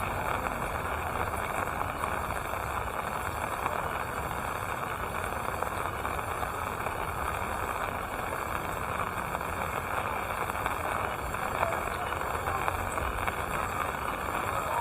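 Steady rain falling, a continuous even hiss with a few faint drips and ticks.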